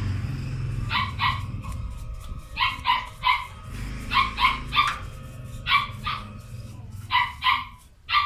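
A dog barking repeatedly: about a dozen short barks in quick groups of two or three, over a low background rumble.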